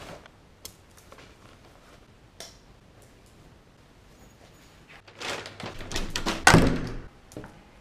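A few soft clicks and rustles of a bag being handled, then, about five seconds in, a clatter of a door's lever handle and latch ending in one loud thunk of the door.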